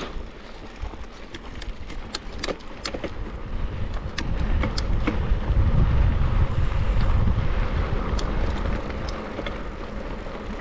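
Mountain bike being ridden over a dirt cross-country course, with sharp rattles and clicks from the bike and its tyres, and wind rushing over the microphone. The wind rush grows louder about four seconds in and eases near the end.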